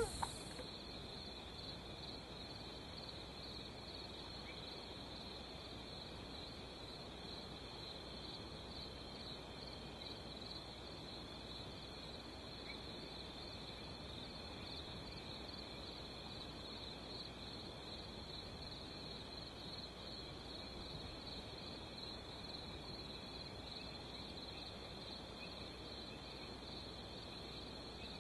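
Faint, steady high-pitched chirring of a chorus of meadow insects.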